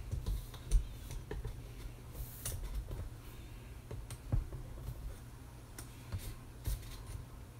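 Scattered light clicks and taps, irregularly spaced, over a low steady hum.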